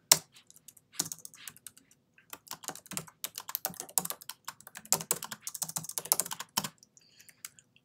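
Computer keyboard typing: quick runs of key clicks with brief pauses, stopping about a second before the end.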